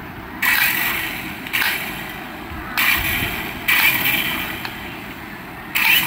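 Toy RC helicopter's small electric rotor motors whirring in repeated bursts of about a second each as the throttle is pushed, the blades spinning up with a hissing whir that starts sharply and fades each time.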